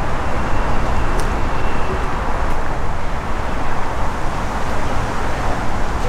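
Steady road traffic noise with a low rumble.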